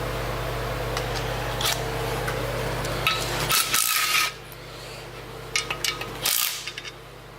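Loose metal parts clinking, rattling and scraping as they are handled, in two clusters about three and six seconds in, over a steady low hum.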